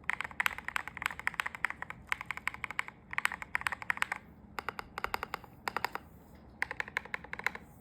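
Typing on a custom-built mechanical keyboard fitted with new keycaps: runs of quick keystrokes in bursts of about a second, broken by short pauses.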